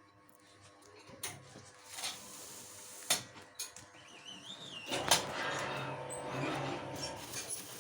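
Manual cup sealer being worked by hand: a few separate clicks and knocks, then a louder knock about five seconds in followed by a rattling clatter lasting a couple of seconds.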